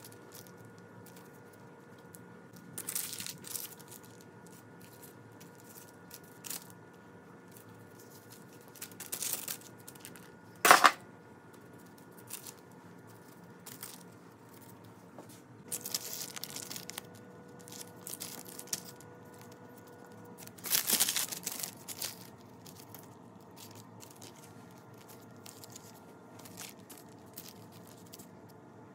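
Baking paper crinkling and puff pastry being handled as the filled strips are twisted, in short bursts of rustling. One sharp knock about eleven seconds in is the loudest sound, with a faint steady hum underneath.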